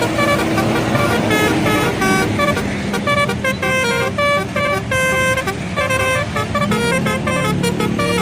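Indonesian bus 'telolet' multi-tone air horn playing a quick tune of short notes that step up and down in pitch, over the low, steady running of the bus engine.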